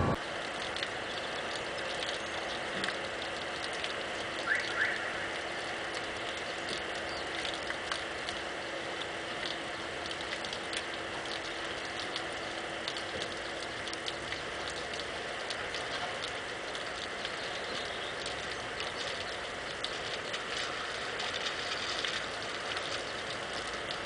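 Light rain pattering and dripping: a steady soft hiss scattered with small ticks. Two short high chirps sound about four and a half seconds in.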